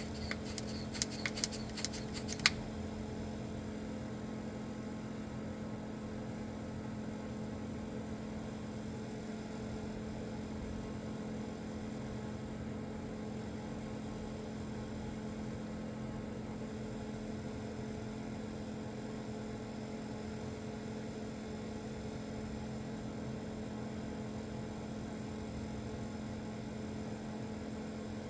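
Engine idling with a steady hum, in an engine that has a vacuum leak. A few sharp clicks in the first couple of seconds.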